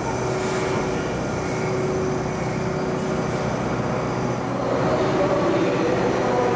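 Steady mechanical drone of a sleeper train standing at a station platform. About five seconds in it grows a little louder as new pitched tones join in.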